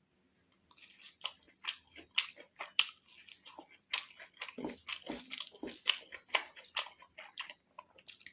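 Close-miked eating: a person biting into and chewing crunchy food, many sharp irregular crunches that come thicker from about halfway through.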